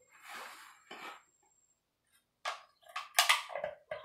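Shims being worked out from between a piston and a steel 4L60E reverse input drum: a scuffing rustle in the first second, then, after a pause, a run of light clinks and taps in the last second and a half.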